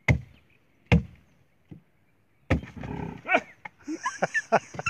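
Wood being chopped out of a tree trunk: three sharp chops about a second apart. Then, about two and a half seconds in, a busier stretch of scuffling noise with short pitched calls.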